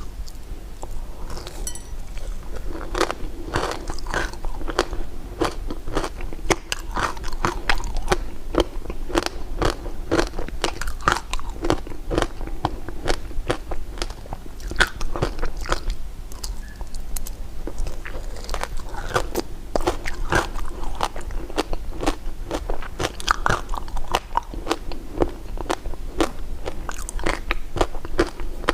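Close-miked biting and chewing of crunchy candy, a dense run of crisp crunches and cracks with no pause.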